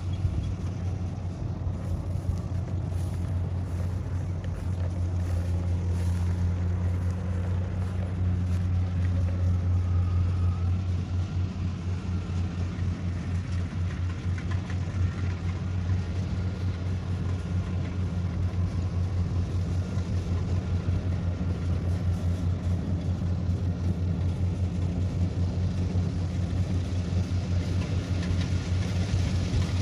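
Rice combine harvester's diesel engine running steadily under load while it cuts paddy, a low drone with a fast even throb.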